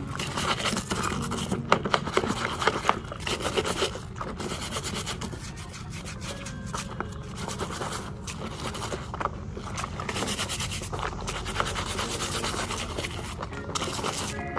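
A brush scrubbing the tyres of a toy monster truck, in a run of irregular rubbing, scraping strokes.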